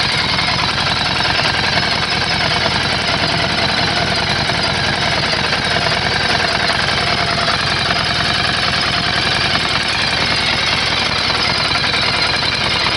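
Harley-Davidson Street 750's liquid-cooled 60-degree V-twin idling steadily through its stock exhaust, with an even, rapid pulsing beat.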